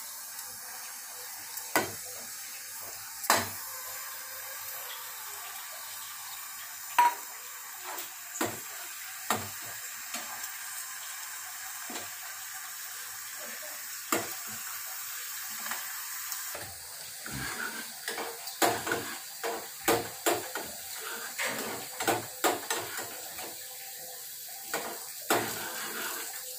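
Chopped garlic sizzling steadily in hot oil in a small steel pan for a tadka, with a metal spoon clinking and scraping against the pan, a few times early on and in quick succession through the second half. The garlic is starting to turn light brown.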